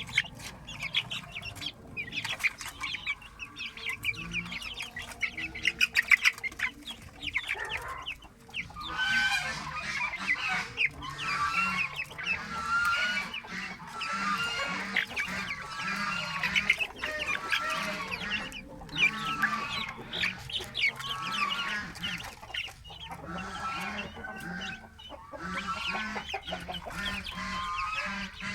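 Chickens clucking. Many short clicks come first, and from about eight seconds in, the birds give short, repeated calls that keep coming until the end.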